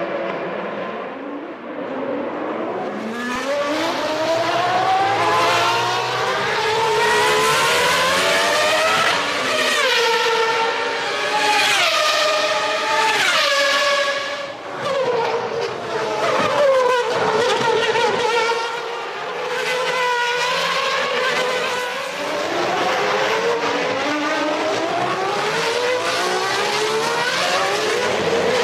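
Formula One race cars of 1993 at high revs, their engine pitch climbing and dropping in steps through repeated gear changes as cars pass one after another.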